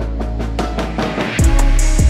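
Background music: plucked-string notes, then a drum beat with a heavy kick drum and a regular high tick comes in about one and a half seconds in.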